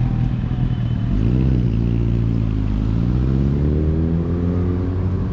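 City bus engine running as the bus approaches along the street, its note rising around a second in and again in a longer, steady climb through the second half as it pulls forward, over general traffic noise.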